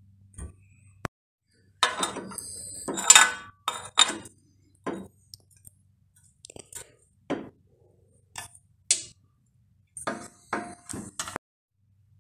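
Metal bicycle parts clinking and knocking as a crank arm is fitted onto the bottom bracket spindle: a scraping, rattling stretch about two seconds in, then a string of separate short clinks and taps.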